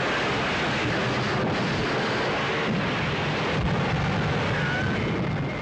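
Train wreck: a loud, continuous rumbling crash of railway cars with a few sharp impacts, dying away at the very end.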